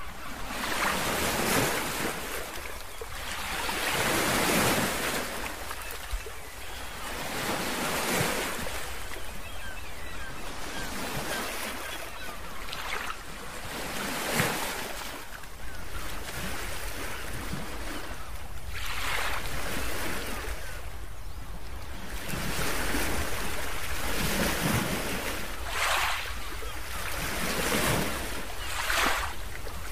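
Ocean surf: waves washing in and drawing back, the noise swelling and fading every few seconds.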